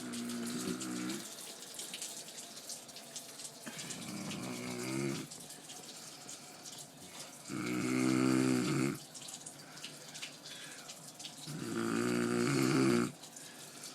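A sleeping man snoring: four long snores about four seconds apart, the last two the loudest, over a steady hiss.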